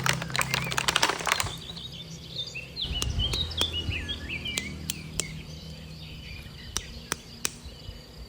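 Rapid rattling clicks for the first second and a half, then faint bird-like chirps and a few scattered sharp clicks.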